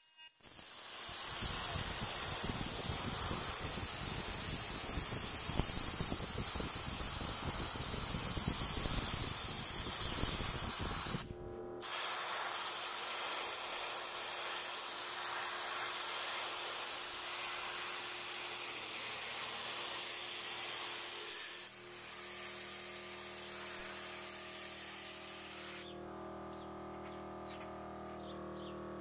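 Compressed-air gravity-feed paint spray gun spraying, a loud steady hiss that breaks off briefly about eleven seconds in when the trigger is let go, then resumes. The hiss stops a few seconds before the end, leaving a fainter steady hum.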